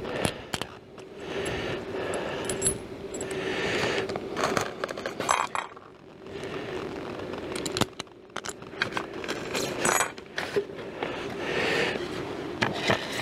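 Small metal screws clinking and rattling as they are picked out of a plastic bag, with the bag rustling and a faint steady hum throughout.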